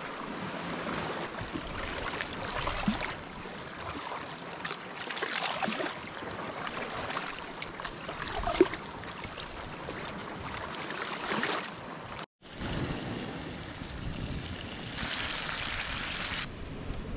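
Wind gusting over the microphone and small harbour waves lapping on a sandy beach, with a short break about twelve seconds in. Near the end, a brief bright hiss of scallops sizzling in butter in a pan.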